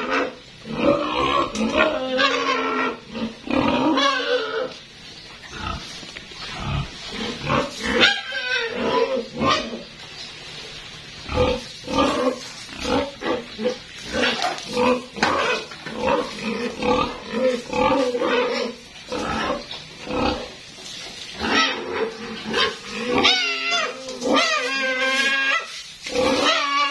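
Pigs squealing and grunting in repeated cries with short pauses, a run of long wavering squeals near the end.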